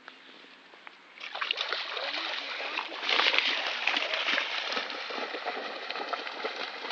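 Two English springer spaniels running through shallow floodwater, splashing and sloshing. The splashing starts about a second in and is loudest around the third second.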